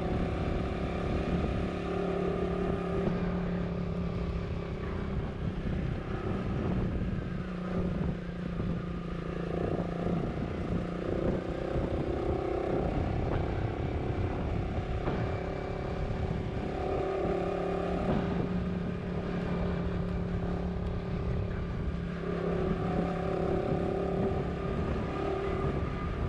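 Motorcycle engine running steadily while riding, with a continuous low rush of wind and road noise and a steady droning tone that shifts level every few seconds.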